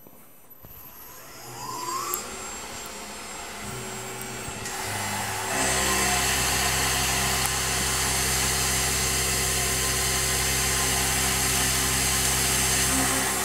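Tormach PCNC 1100 CNC mill starting a programmed cut with a quarter-inch four-flute end mill. A rising whine about a second in comes as the spindle spins up. About five seconds in, a loud, steady machine hum with a high hiss sets in and holds as the slot is milled.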